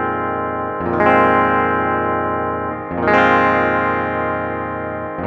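Electric guitar played through its bridge pickup: a note or chord struck about a second in and again about three seconds in, each left to ring and fade slowly. It is a sustain and dead-spot test of its freshly dressed stainless-steel or nickel-silver frets.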